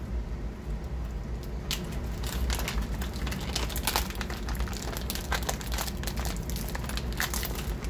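Clear plastic bag crinkling and crackling irregularly as it is handled to free pistol magazines that are stuck inside it. The crinkling starts about two seconds in.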